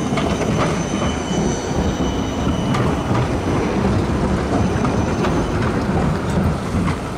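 Siemens Combino low-floor tram passing close by, its wheels rumbling over the rails with a few sharp clicks and a faint high-pitched wheel squeal.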